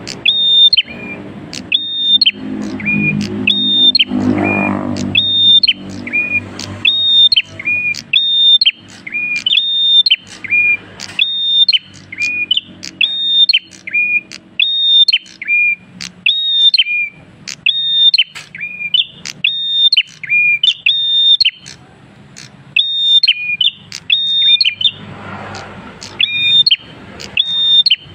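Caged tailorbird (prenjak kristal) singing nonstop: a loud, rapid string of sharp whistled calls, each a high note dropping to a lower one, about two a second.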